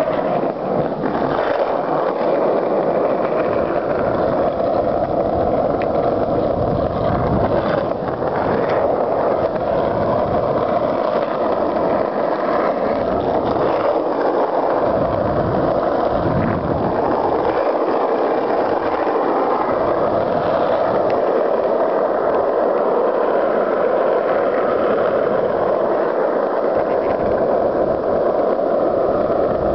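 Steady rushing noise with uneven wind buffeting on the microphone, heard while moving along a road.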